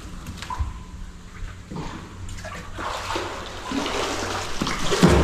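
Water splashing and sloshing against the side of a small boat, building up over the last few seconds to a sharp, loud splash and knock near the end.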